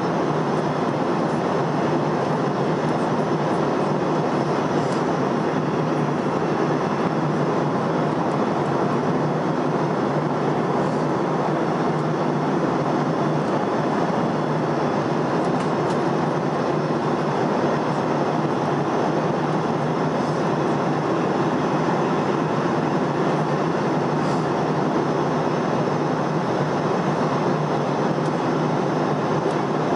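Steady airliner cabin noise at cruising altitude: the even rush of the engines and the airflow around the fuselage, heard from inside the cabin, unchanging in level.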